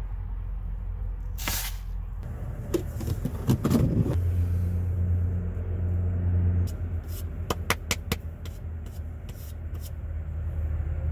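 Scattered clicks, knocks and scrapes of items being handled in a pickup's camper shell, over a steady low hum, with a short hiss about a second and a half in.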